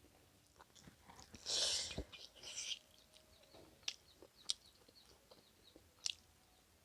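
Close-up eating sounds: a crunchy bite about a second and a half in, another about a second later, then scattered small clicks of chewing.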